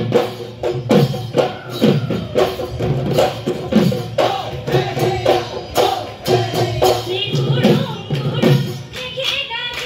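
Live Bihu music: dhol barrel drums beating a fast rhythm, their deep strokes sliding down in pitch, with jingling percussion, a held melodic line and singing over it.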